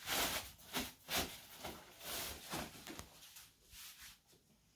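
A blue disposable barrier pad rustling as it is unfolded and laid on the floor, several quick rustles that fade out over the last couple of seconds.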